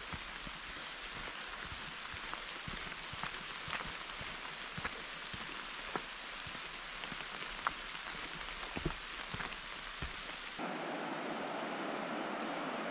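Steady hiss of rushing water with scattered sharp ticks. About ten seconds in it changes abruptly to a fuller, lower rush.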